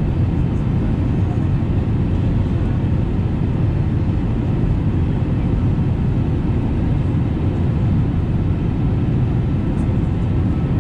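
Steady cabin noise inside an Airbus A320neo airliner descending on approach: an even rumble of engines and airflow, heaviest in the low range.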